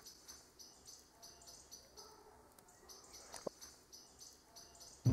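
Crickets chirping faintly in a steady run of high chirps, with one soft click about three and a half seconds in.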